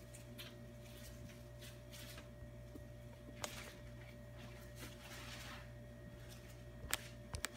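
Quiet kitchen room tone: a steady low hum with a faint steady tone above it, broken by a few small clicks and knocks, the sharpest near the end.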